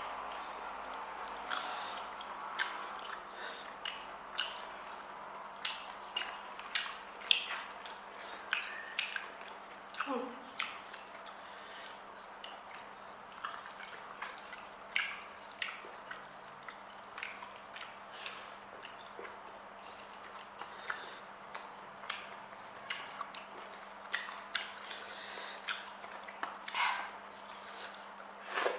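Eating sounds: chewing and wet mouth noises with many small clicks and taps, over a steady low hum. Brief voice sounds come about ten seconds in and again near the end.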